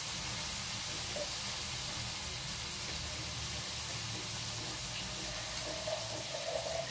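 Kitchen tap running water into a plastic jug, with a note that rises near the end as the jug fills.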